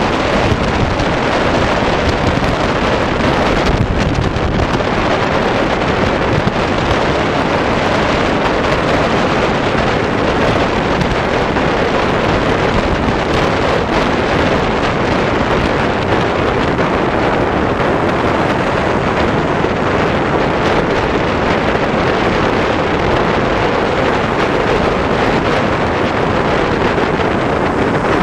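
Steady wind rushing over the microphone of a moving motorcycle, with the bike's running noise underneath.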